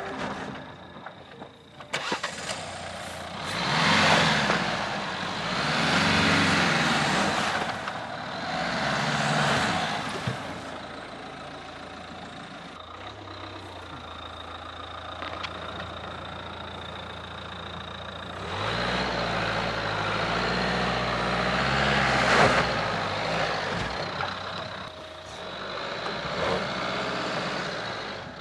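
Dacia Duster 4x4 engine revving under load as the SUV climbs a steep grass slope, rising and falling in several swells, then running steadier before pulling harder again.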